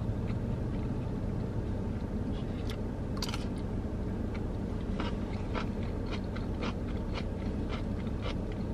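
Crunching bites and chewing of a pickle spear: crisp crunches start about three seconds in and go on at short, uneven intervals, over a steady low hum.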